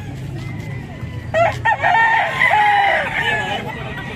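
A gamecock rooster crows once, a long call of about two seconds starting a little over a second in, over a steady low background hum.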